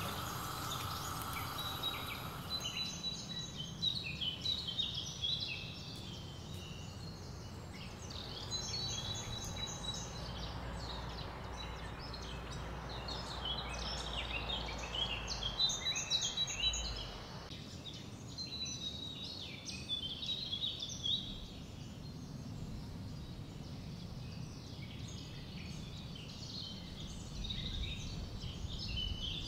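Birds chirping, with many short repeated calls, over a low steady hum that stops about halfway through.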